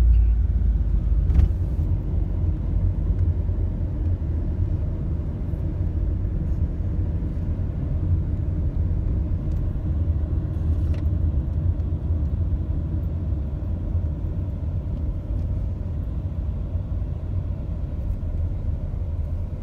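Car driving, with a steady low rumble of road and engine noise heard from inside the cabin.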